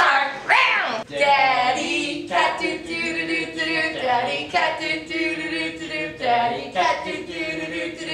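Several voices singing a song together, with a whoop that rises and falls about half a second in.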